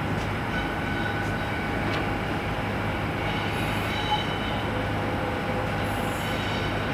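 Class 66 diesel locomotive approaching on a freight train, its two-stroke V12 engine running with a steady low drone and a few faint steady higher tones over it.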